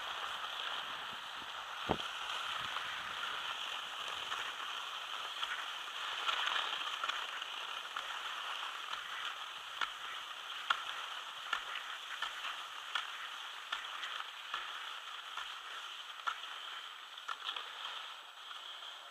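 Skis sliding over groomed snow: a steady scraping hiss with scattered small clicks, and a single knock about two seconds in.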